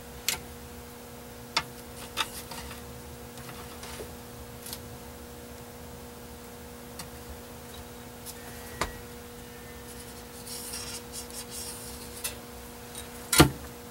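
Felt-tip marker scratching faintly as it traces around the base of a tripod ball head on a sheet of aluminium, with a few sharp knocks as the head is handled and set down, the loudest near the end. A steady electrical hum runs underneath.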